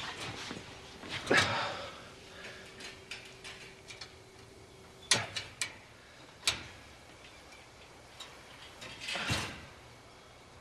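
Quiet handling and movement sounds: two soft swishes of clothing, about a second in and again near the end, with a handful of sharp clicks and knocks between them.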